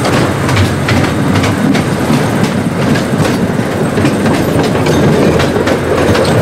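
Miniature ride-on train rolling along its track: a steady running rumble with repeated clicks of the wheels over the rail joints.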